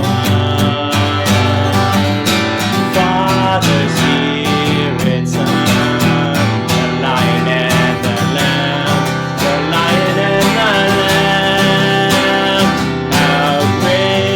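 Music: an instrumental-led song playing continuously.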